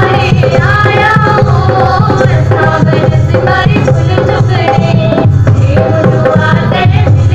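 Folk song with a singing voice over a steady, driving drum rhythm, played loud.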